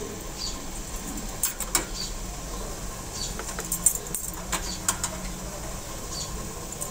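Wooden skewers of steamed chicken tikka knocking and scraping against a perforated stainless-steel steamer basket as they are lifted out: scattered light clicks and clinks.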